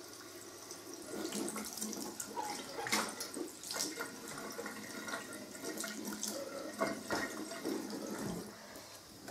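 Water running from a tap into a sink, splashing unevenly. It gets louder about a second in.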